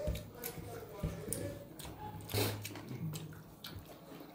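Eating by hand: wet chewing and mouth sounds, with small irregular clicks as fingers mix rice on a steel plate.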